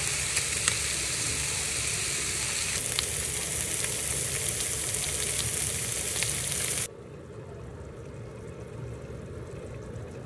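Spare ribs searing in a frying pan, a steady loud sizzle with scattered pops and crackles. About seven seconds in it cuts to a much quieter, softer sound of the braised ribs simmering in a cast-iron pot.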